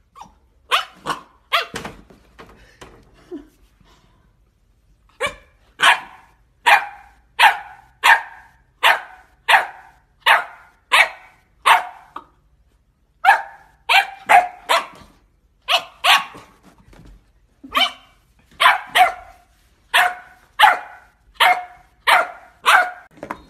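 Black Labrador retriever puppy barking at its own reflection in a mirror: a long string of short, high yaps, about one every three-quarters of a second, broken by a few short pauses.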